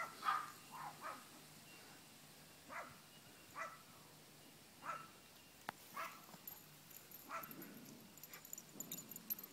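Chihuahuas at play giving short, high yips and barks, about eight of them at irregular intervals.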